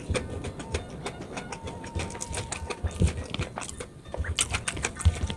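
Close-up eating sounds: crunchy, wet chewing with many short clicks as a person eats rice and raw vegetables (lalapan) by hand.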